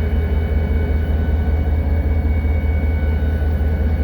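EMD SD40-2 locomotive's 16-cylinder two-stroke diesel running steadily, heard from inside the cab: a deep, even rumble with a few faint steady high tones above it.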